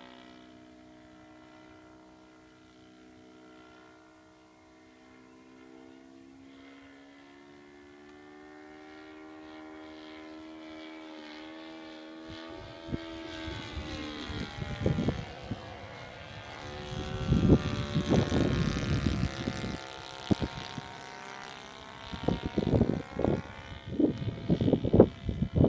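Thunder Tiger 130 four-stroke glow engine of a radio-controlled Stuka model flying overhead: a steady, distant drone whose pitch drifts slowly as the plane moves. About halfway through, irregular gusts of wind buffeting the microphone start and become the loudest sound over the engine.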